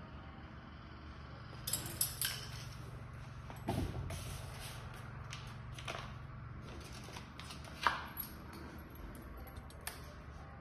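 Handling noises as small printer and conveyor parts are unpacked and fitted: scattered clicks and knocks with crinkling of plastic packaging, the sharpest knock about eight seconds in, over a low steady hum.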